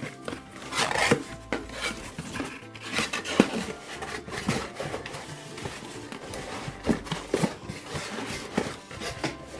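A cardboard toy box being opened by hand: irregular scraping, rubbing and knocking as the flaps and inner packaging are pulled and moved. Background music plays along.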